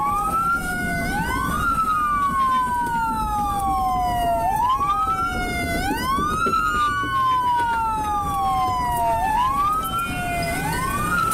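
Two police car sirens in wail mode, overlapping. Each rises quickly in pitch and then falls slowly, about once every five seconds, over a steady low rumble of road and engine noise.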